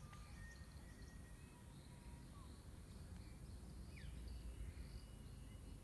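Quiet outdoor ambience with faint bird calls: a few short whistled notes, one quick gliding note about four seconds in, and repeated high chirps, over a low rumble.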